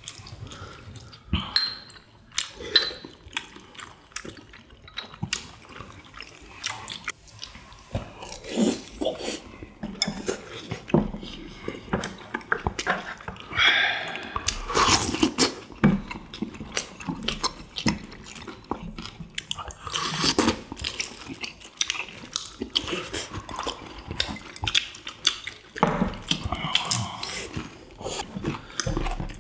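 Close-up eating sounds of tteokbokki and fried chicken being eaten: irregular chewing and mouth noises, with a slurp from a bowl of sauce about halfway through, and chopsticks clicking against dishes.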